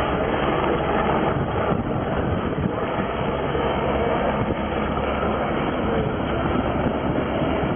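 Eurocopter AS350 Squirrel helicopter hovering low with a long line slung beneath it: steady rotor and turbine engine noise.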